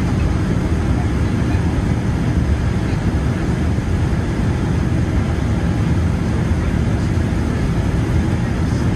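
Steady low cabin rumble inside a Boeing 787-9 as it taxis, from the engines at idle and the airframe rolling along the taxiway, with a faint steady hum over it.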